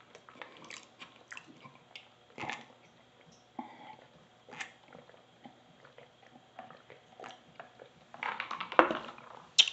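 A person drinking from a paper cup: soft swallowing and small mouth clicks at irregular intervals, with a louder run of mouth noises near the end.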